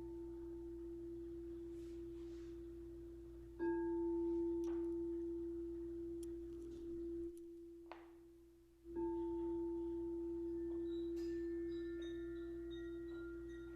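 Quartz crystal singing bowl ringing one steady, pure tone that swells and slowly fades. It starts afresh sharply twice, about 3.5 and 9 seconds in, and cuts out briefly just before the second. Near the end, short higher bell-like notes join in.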